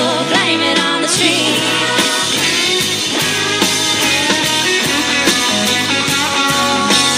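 Live country band playing an instrumental passage between sung lines, with guitars to the fore over a steady beat.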